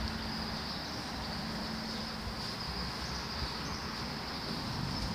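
Steady outdoor background noise with a thin, even high-pitched whine and no distinct kicks or voices.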